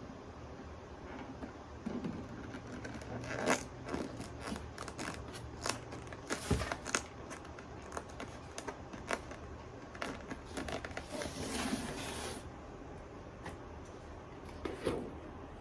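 Hands handling paper and adhesive hinges: scattered light clicks, taps and rustles, with a longer scraping rustle about eleven seconds in.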